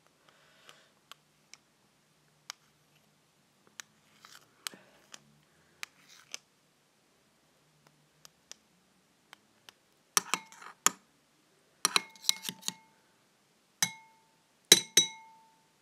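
A utensil tapping and clinking against a glass container while slime ingredients are mixed. Faint scattered ticks come first, then from about ten seconds in a run of sharper clinks, each ringing briefly.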